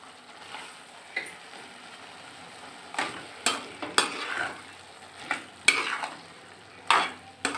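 Peas and potatoes frying in oil in a metal kadhai with a steady sizzle. A metal spoon scrapes and knocks against the pan as they are stirred, the knocks coming more often from about three seconds in.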